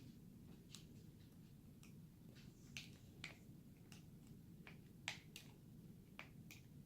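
Near silence with faint, scattered small clicks and ticks from a glue bottle and bowl being handled as clear glue is squeezed into the bowl; one click about five seconds in is sharper than the rest.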